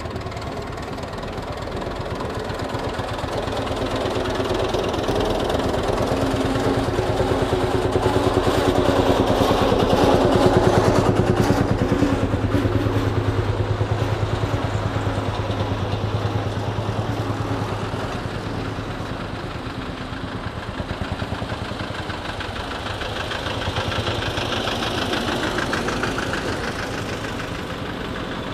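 Engines of old farm tractors running as they drive past one after another, loudest about ten seconds in as a big tractor passes close, with a second, smaller swell near the end.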